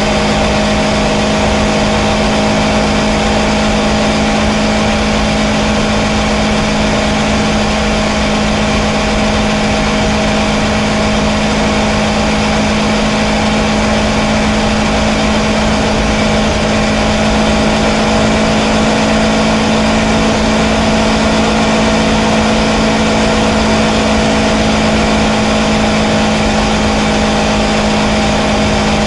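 Kawasaki Versys 650's parallel-twin engine running at a steady cruise, its pitch holding constant, over a steady rush of wind and road noise from riding at speed.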